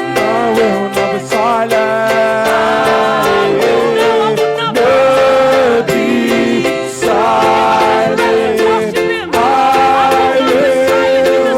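Live worship music: singing in long held, wavering notes over a steady strummed plucked-string accompaniment.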